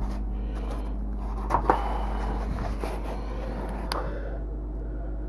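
Handling noise as a pulp egg carton and the camera are moved about: two light knocks in quick succession about a second and a half in, another near four seconds, and faint rustling over a steady low hum.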